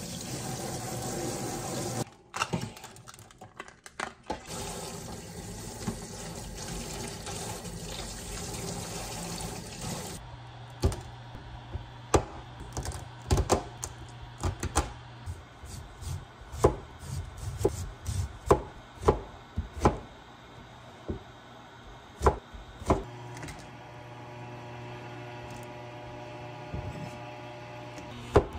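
Water from a kitchen tap running over crabs in a stainless-steel sink, then a cleaver chopping through the crabs on a cutting board: about fifteen sharp chops, roughly one a second, with a short pause partway through.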